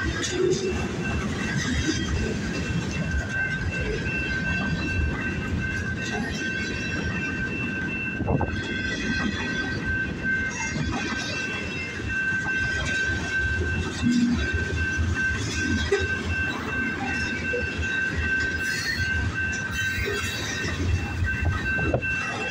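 Mixed-freight train cars rolling past on the rails with a steady rumble, with a steady high-pitched wheel squeal over it.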